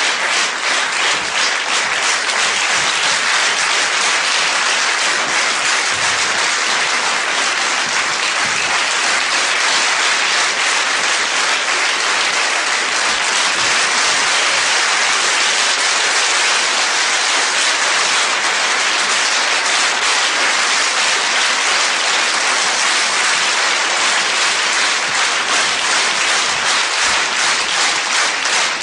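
Theatre audience applauding steadily, the clapping falling into an even rhythm near the end.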